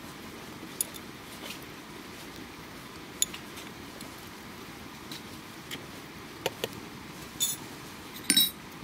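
Dishes and utensils clinking and knocking in scattered light taps over a steady faint background, with one louder ringing clink near the end.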